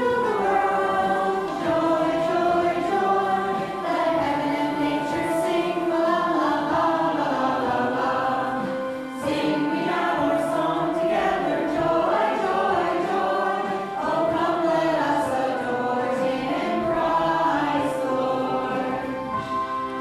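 A choir singing in chorus, several voices together, phrase after phrase with brief breaks between phrases.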